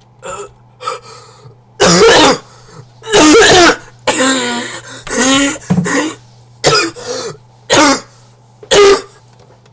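A person in a hard coughing fit: about nine loud, harsh coughs and hacks, a few of them drawn out and voiced, so violent that they bring on nausea.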